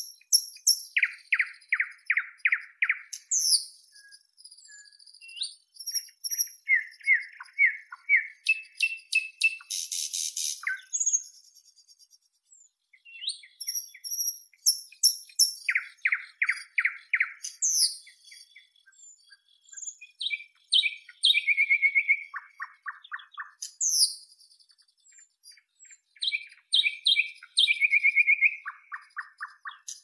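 Nightingale singing: a string of varied phrases with short pauses between them, made of runs of rapidly repeated notes, fast rattling trills and high whistles.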